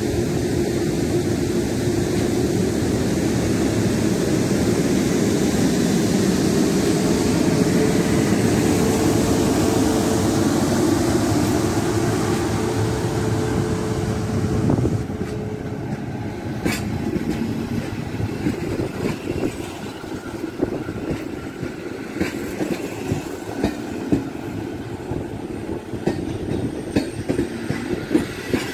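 Electric locomotive hauling a passenger train passes close by: a loud steady rumble with a steady hum, which drops about halfway through as the passenger coaches roll past, their wheels clicking over rail joints.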